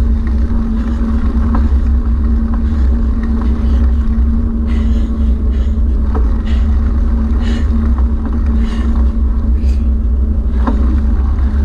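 A small motor running at an even speed, giving a constant hum over a heavy low rumble, with wind buffeting the microphone.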